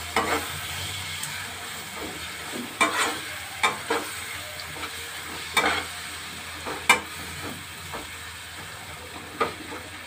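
Onions and freshly added spice paste frying with a steady sizzle in a steel kadai, while a steel spatula stirs and scrapes, clacking sharply against the pan about six times.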